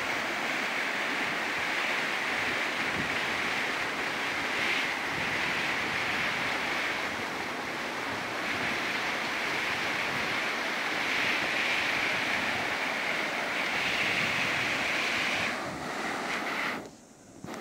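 Small mountain waterfall splashing down a rocky gully in a steady, even rush of falling water. The sound breaks off briefly near the end.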